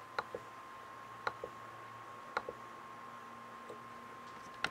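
Computer mouse button clicked four times to re-run a web randomizer, each click a quick double tick of press and release. There is a faint steady whine underneath.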